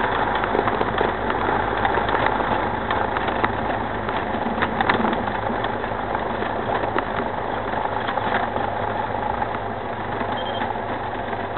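Single-engine propeller airplane's engine running steadily at low power while the plane taxis, heard from inside the cockpit.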